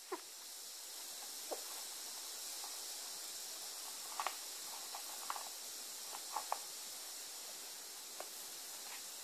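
Steady background hiss with a scattering of faint short squeaks and ticks, most of them between about four and six and a half seconds, as a small kitten paws and scrambles over a cloth.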